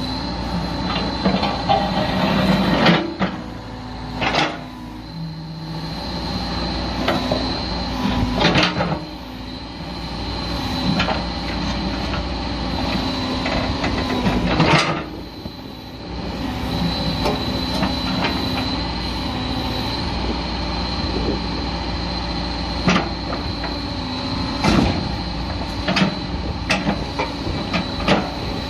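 Backhoe loader's diesel engine running steadily under load, with a steady high whine over it and repeated sharp clanks and knocks from the bucket and arm working the road surface. The loudest knocks come about 3, 4.5, 8.5 and 15 seconds in.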